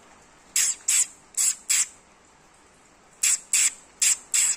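A person making short hissing "pss-pss" sounds to call a kitten, in two quick runs of four.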